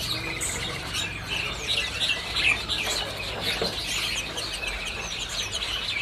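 Many caged songbirds chirping and calling at once: a dense chatter of short high chirps, with a brief rapid trill near the start.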